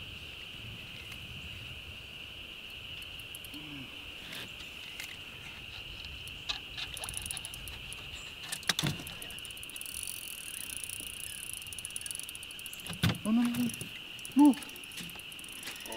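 Steady high-pitched insect drone, with scattered sharp clicks and knocks and two short voice sounds near the end, the second one loud.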